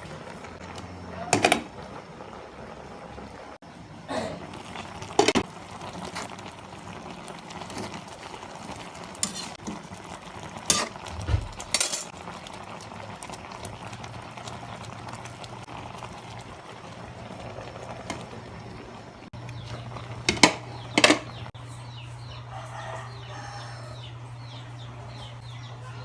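Scattered clinks and knocks of utensils against a cooking pot and dishes, over a steady low hum.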